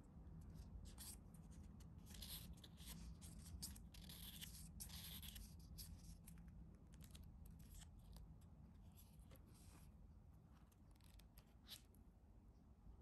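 Faint handling noises: light scrapes, rustles and clicks from objects being moved about by hand, thickest in the first half and sparser later, over a low steady room hum.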